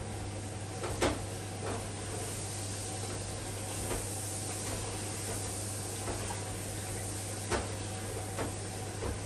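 Kitchen utensils and cookware knocking and clinking about six times against a steady background hum and hiss, the loudest knock about a second in.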